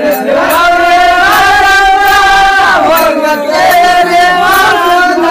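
Men singing a Kannada Muharram folk song (Muharram pada), loud, in long drawn-out notes that dip in pitch between phrases.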